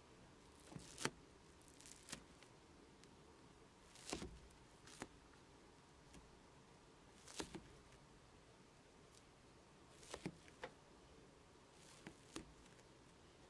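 Near silence broken by faint, scattered clicks and taps, about eight of them, some in quick pairs, like small handling noises during handiwork.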